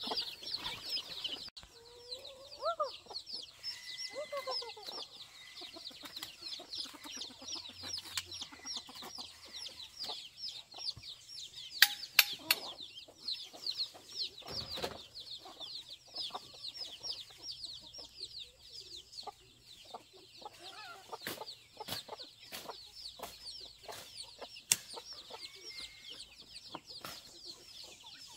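Chicks peeping in a dense, continuous chorus of short high chirps, with hens clucking, louder in the first few seconds. A few sharp knocks stand out, the loudest about halfway through.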